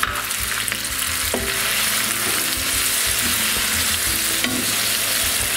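Onion, garlic and red pepper sofrito with freshly added grated tomato sizzling steadily in hot oil in a non-stick frying pan, stirred with a wooden spatula.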